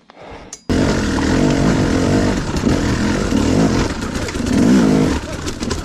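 Dirt bike engine running loud, its pitch rising and falling with the throttle, starting abruptly under a second in.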